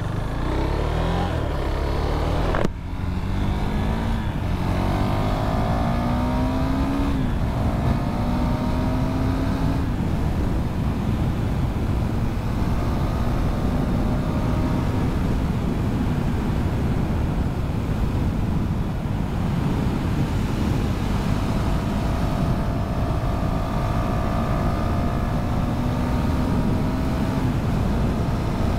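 KTM Duke 390's single-cylinder engine accelerating through the gears, with a gear change about three seconds in, then holding a steady cruising speed, with wind noise over it.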